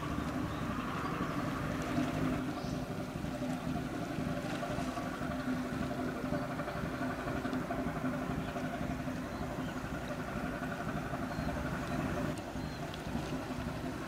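A general cargo ship's diesel engine running with a steady drone as the ship passes, over a low rumble.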